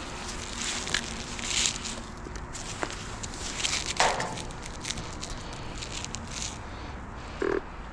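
Footsteps outdoors, irregular and rustling, with a few clicks and a knock about halfway. A brief tone sounds near the end.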